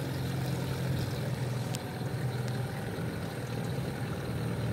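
A boat's motor running steadily at an even pitch as the boat moves across shallow water.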